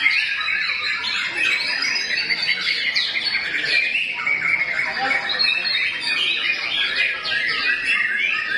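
Many caged white-rumped shamas (murai batu) singing at once in contest: a dense, unbroken chorus of overlapping fast chirps, trills and whistles.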